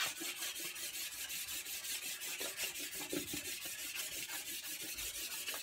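Chalk pastel rubbed back and forth on paper to colour in an area, a steady scratchy scrubbing in quick, even strokes several times a second.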